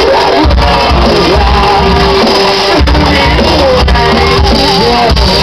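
Live rock band playing loud, with a male lead singer holding long sung notes over guitars and bass.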